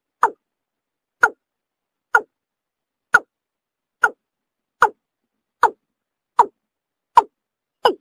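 Watercock (kora) calls played back as a hunting lure: a steady series of short calls, each falling in pitch, about one a second and coming slightly faster toward the end.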